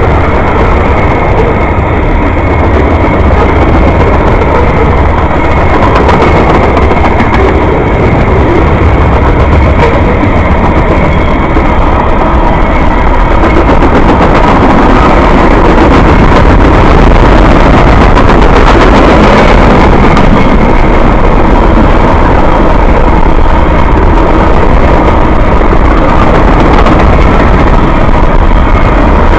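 Freight train of tank cars and covered hopper cars rolling past at close range: a loud, steady rumble and clatter of steel wheels on the rails, with a faint high steady whine riding over it.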